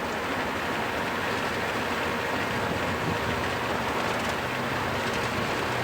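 Boeing 737-800's CFM56-7B turbofan engines at takeoff thrust, heard from inside the cockpit during the takeoff roll, with the aircraft rumbling down the runway. It is a steady, even noise.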